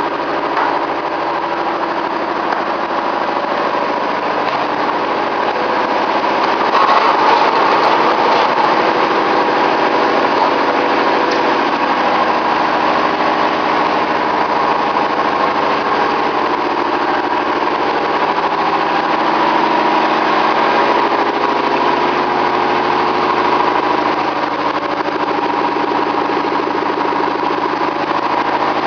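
Universal milling machine running steadily, with a constant machine hum and whine. It grows slightly louder and busier about seven seconds in.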